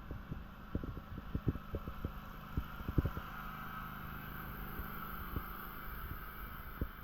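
Irregular low thumps of footsteps and handheld-camera handling during a walk, over a steady background hum.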